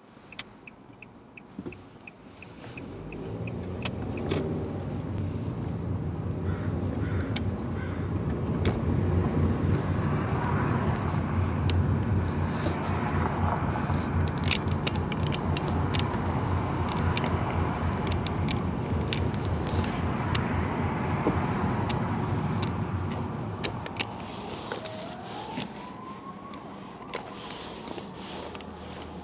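Car driving through city traffic, heard from inside the cabin: engine and road noise build a few seconds in as the car gets moving, run steadily, then ease off near the end as it slows to a stop. Scattered light clicks run through it.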